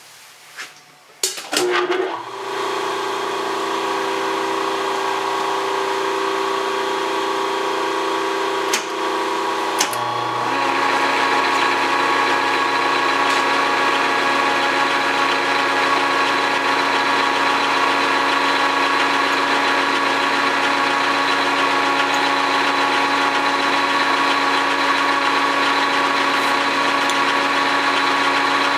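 Switch clicks and an electric motor starting about two seconds in, humming steadily: the phase converter that powers the South Bend lathe. About ten seconds in, after a knock, the lathe's motor and spindle start, and the lathe runs steadily at low speed with a louder mechanical hum.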